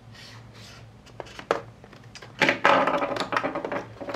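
Hard clear plastic clamshell packaging being cut with a knife and pried apart: a couple of sharp clicks, then a loud run of crackling and snapping plastic lasting about a second and a half.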